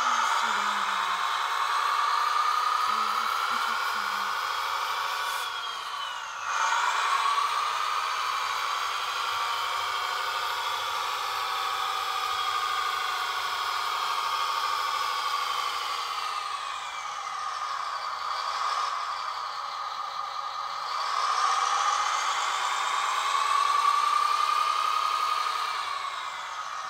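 Wedico 1/16 DAF 8x8 radio-controlled model truck running, a whine of several pitches that rises and falls with its speed as it manoeuvres. It gets suddenly louder about six seconds in and swells again near the end.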